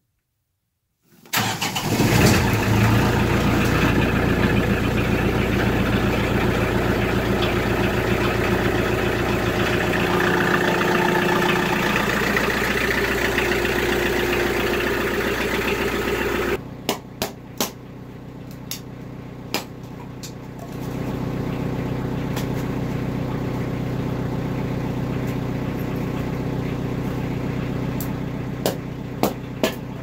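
Kioti tractor's diesel engine starting with the key about a second in, then running steadily. Later the engine sound drops to a fainter steady hum, with a scatter of sharp wooden knocks and clunks from firewood being handled, and the hum grows louder again a few seconds after that.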